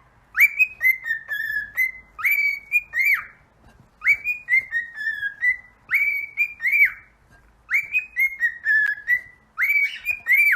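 A pet parrot whistling a short tune of quick rising and falling notes, repeated about six times with brief pauses between.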